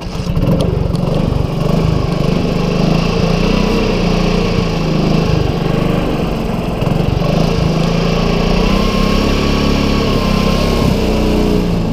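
LML Star 200 scooter's two-stroke single-cylinder engine running through a Leo Vince Sito exhaust, a fairly even engine note.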